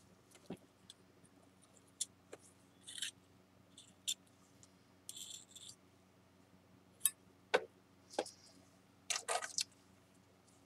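Spatulas tapping and scraping on a glass plate as a paste of shin urushi and flour is mixed: scattered faint clicks and short scrapes, with a brief clatter of tools near the end.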